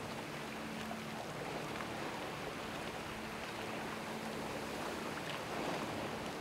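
Sea water rushing and splashing along the wooden hull of a sailing dhow under way, a steady wash of spray with no engine.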